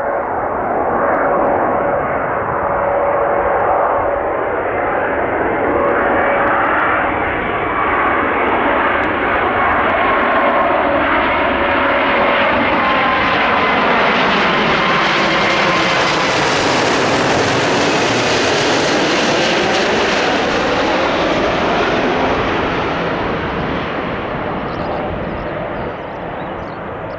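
Boeing 777-300 twin-engine jet airliner on final approach passing low overhead: loud, steady engine noise with a held whine early on. The hiss turns brighter and louder as it comes over, peaks about two-thirds of the way in, then fades as it moves off toward the runway.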